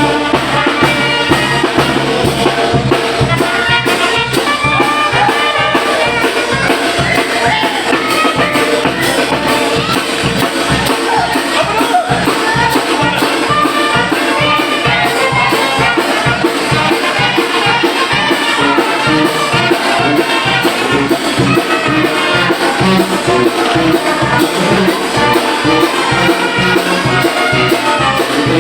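Mexican banda (brass band) playing: trumpets and trombones carry the melody over a steady drum beat.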